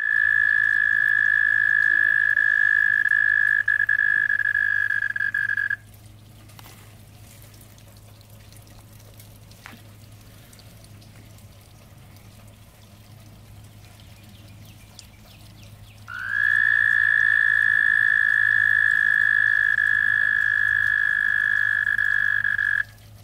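A male toad's mating trill: a long, steady, high trill held on one pitch. One trill of about six seconds, then after a pause of about ten seconds a second trill of about seven seconds.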